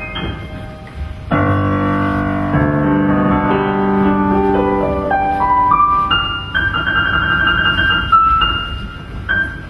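Piano played live: a strong chord about a second in, then notes climbing step by step to repeated high notes, fading near the end.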